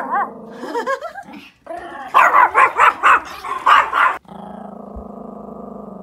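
Pomeranians giving alert barks at a deer outside: a few barks, then a rapid burst of about eight barks, followed by a steady low growl for the last couple of seconds.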